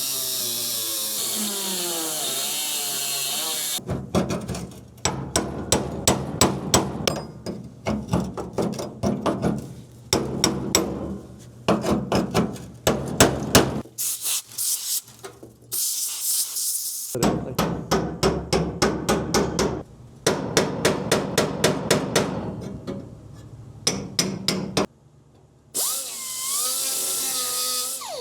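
Metal repair work on a truck floor pan: runs of sharp, rapid strikes like hammering on sheet steel, in several abruptly cut segments, with a power tool's wavering whine at the start and again near the end.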